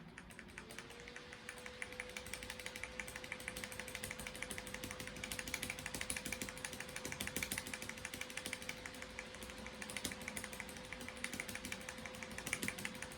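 A PC powering up: its graphics-card cooling fan spins up to a steady hum, rising in pitch about half a second in and then holding. Over it comes a rapid, continuous patter of keyboard key presses: the F12 key being spammed to call up the boot menu.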